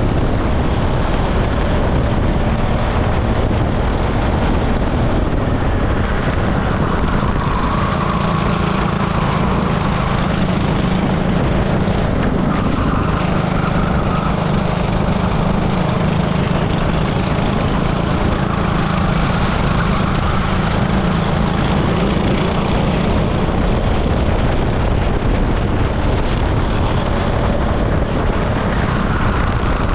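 An 18 hp super kart's engine running hard out on track, recorded onboard, its note shifting up and down as the kart speeds up and slows through the lap.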